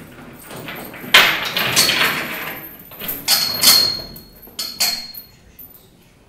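Vintage suitcase being unlatched and opened: a run of knocks, clacks and scrapes from its metal catches and lid. Two of the knocks leave a short ringing metal tone.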